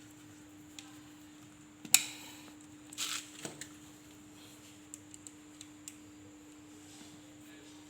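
Metal parts and tools of an electric tile cutter being handled during reassembly: a sharp metallic clack with a brief ring about two seconds in, a short rattling scrape a second later, then a few light clicks.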